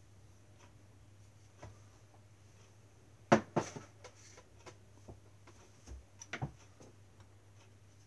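Scattered light knocks and clicks of paint brushes and small paint pots being handled and put down, the loudest about three seconds in, over a faint steady hum.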